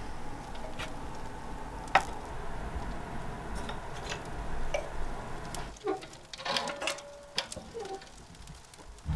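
Small Cubic Mini wood stove being lit: scattered light clicks and knocks of kindling sticks and the stove's metal door and latch being handled, with a few brief metallic clinks in the second half.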